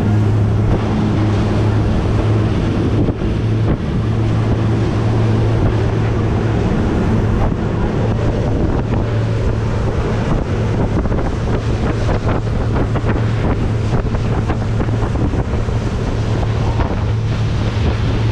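Motorboat running steadily over open water: a constant low engine drone under heavy wind buffeting on the microphone, with water rushing past the hull.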